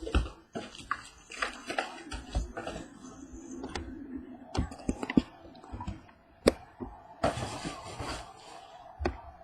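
Hands handling trading-card boxes and packs: irregular taps and clicks, with a stretch of crinkling or tearing of pack wrapping about seven seconds in.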